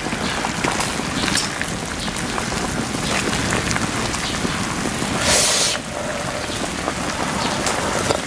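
Steady crackling of a wood fire under a boiling pot of soup, many small pops over an even hiss, with a brief louder hiss about five seconds in.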